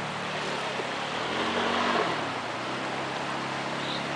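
Polaris ATV engine running as the quad drives over a dirt track, its pitch rising briefly about a second and a half in as it speeds up, then settling.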